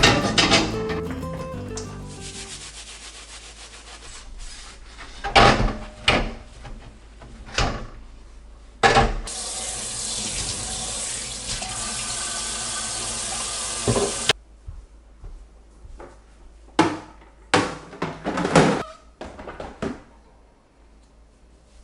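Kitchen tap running into a sink for about five seconds and shut off abruptly, with scattered knocks and clatter before and after. Background music fades out in the first couple of seconds.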